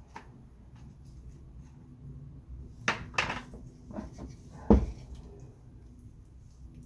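A few separate knocks and clatters of things being handled, the loudest a heavier low thud about two thirds of the way through.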